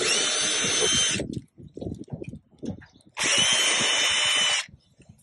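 Cordless drill/driver backing screws out of a sheet-metal heat-pump service panel: two steady runs with a whine, about a second each, at the start and about three seconds in, with light clicks and knocks of handling between them.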